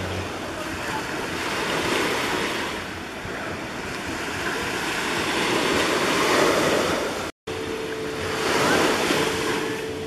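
Waves breaking and washing up on a sandy beach, swelling three times, with some wind on the microphone. After a brief break in the sound about seven seconds in, a steady low hum joins the surf.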